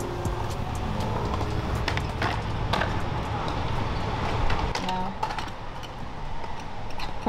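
Skateboard wheels rolling on concrete with scattered sharp clacks of boards. The low rolling rumble drops away about five seconds in.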